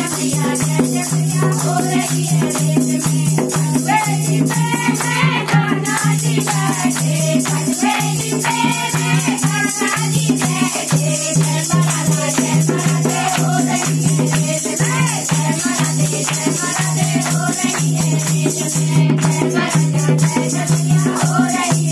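A group of women singing a Hindi devotional bhajan in chorus, kept in time with rhythmic hand-clapping and a dholak drum.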